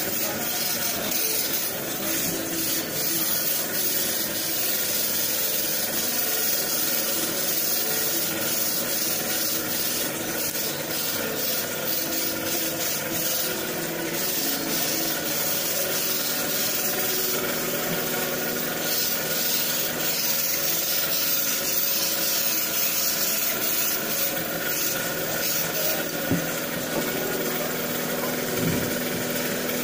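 A motor runs steadily throughout, an even hum under a high hiss, with two light knocks near the end.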